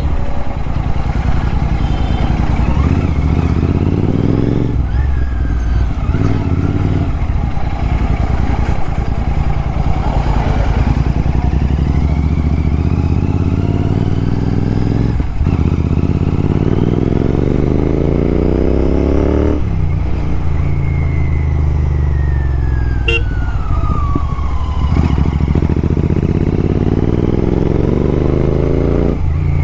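Royal Enfield Continental GT 650's parallel-twin engine pulling through the gears. The pitch climbs and then drops back at each shift, several times over.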